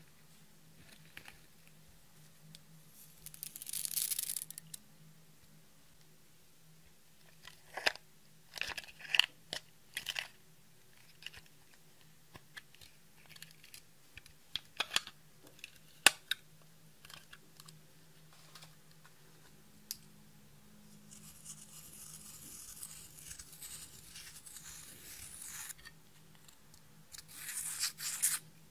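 Makeup being handled and scraped: scratchy, crumbling sounds of powder eyeshadow being dug out of its pot with a brush, a longer stretch of it late on, with a run of sharp clicks from plastic compact cases being opened and set down in the middle.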